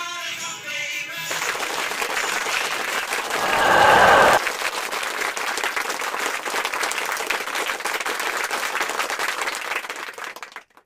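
Crowd applause, taking over from music with a tambourine about a second in, with a louder swell about four seconds in. It cuts off abruptly near the end.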